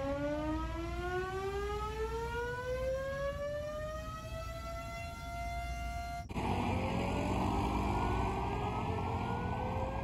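Air raid siren sounding the 10 pm curfew, its pitch rising slowly and steadily as it winds up. About six seconds in, the sound cuts abruptly to another take, where the siren is fainter and again rising under a steady rushing noise.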